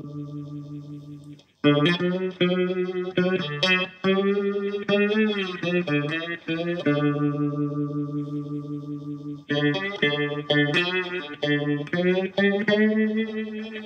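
One-string electric diddley bow, played with a slide through an amplifier, in a blues riff. A ringing note dies away, and after a short break the riff of picked notes with sliding pitch resumes. It holds one long ringing note midway, then goes into quicker picking.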